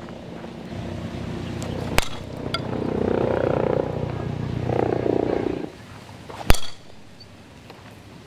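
Two sharp cracks of a softball bat striking a ball, about four and a half seconds apart; the second is the louder and rings briefly. A muffled rumbling noise fills the time between them.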